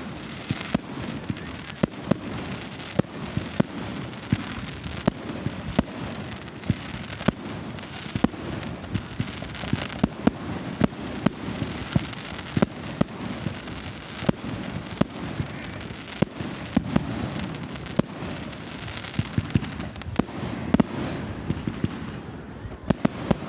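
Fireworks going off without a break: many sharp bangs, several a second at times, over a constant crackle.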